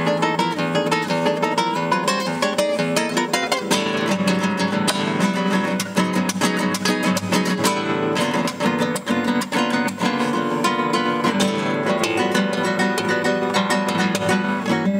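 Solo classical guitar with nylon strings, played fingerstyle: a continuous flow of quick plucked notes with chords underneath.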